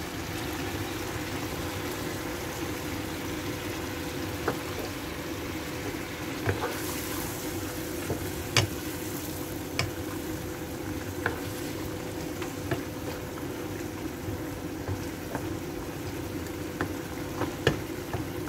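Fish curry in coconut milk simmering in a nonstick pan, a steady bubbling hiss. A spatula stirs it, giving short taps and scrapes against the pan now and then.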